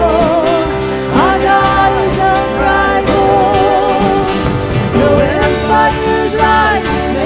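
Live worship band music: women singing a sustained "oh, oh" line with vibrato and gliding notes over drums and keyboard.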